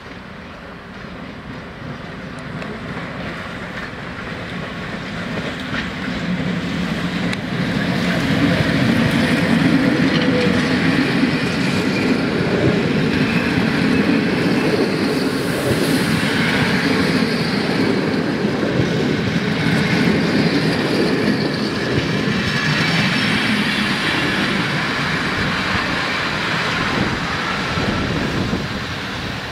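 A passenger train hauled by an EU07 electric locomotive pulling into the station and rolling close past: wheels clattering over the rail joints, loudest from about eight seconds in, with high squeals from the running gear as the coaches pass. The noise falls away near the end as the train comes to a stand.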